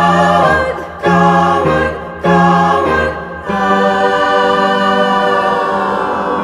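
Song music with layered, choir-like singing: a few short sung notes in quick phrases, then one long held chord from about three and a half seconds in that slowly fades.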